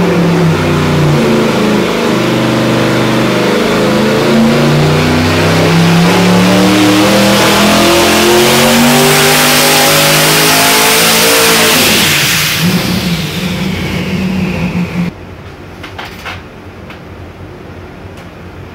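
Twin-turbo 454 small-block Chevy V8 on an engine dyno making a full-throttle pull, its pitch climbing steadily for about twelve seconds to around 6,000 rpm, then falling off as the throttle closes. About fifteen seconds in the engine is shut off, leaving a couple of clicks and a lower steady background hum.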